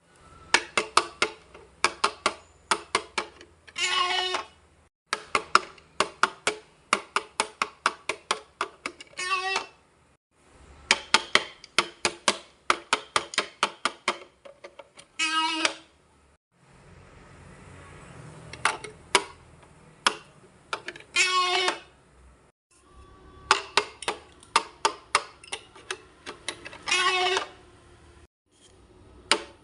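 Edited-in sound effects in a repeating pattern: a run of quick clicks or taps, then a short warbling, wobbly-pitched comic tone. The cycle comes about five times, every five or six seconds.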